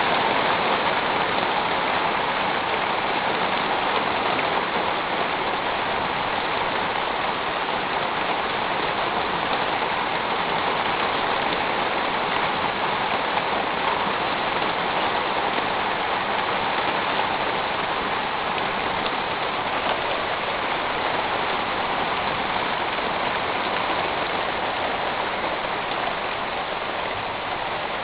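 Heavy rain drumming steadily on a metal roof, a dense even hiss that eases slightly near the end.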